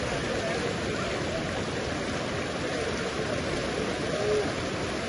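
Fast-flowing mountain stream rushing steadily under strong pressure.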